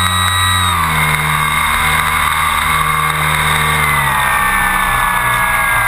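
RC model airplane's motor running at high throttle, heard up close from a camera mounted on the plane: a steady high whine over wind rush, its pitch dipping slightly about a second in and sagging slowly lower near the end.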